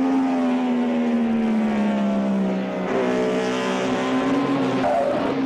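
Benelli four-cylinder and MV three-cylinder racing motorcycle engines running hard at high revs. Their note falls steadily over the first half as the bikes slow into the chicane, then a fresh, slightly rising note picks up about three seconds in as they accelerate.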